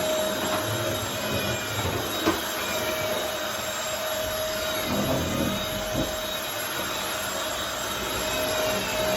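Vacuum cleaner running steadily with a constant whine over its rushing airflow, and a single sharp knock about two seconds in.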